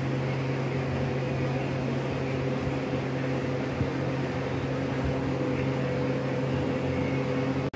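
A steady mechanical hum at one constant low pitch, with a light hiss over it.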